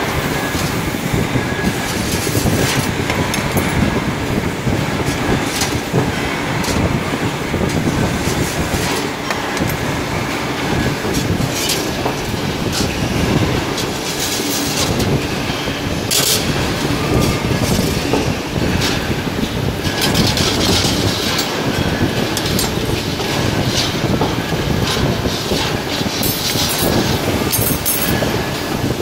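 2D CNC wire bending machine running, a steady mechanical noise broken by repeated clicks and clacks as it feeds and bends wire.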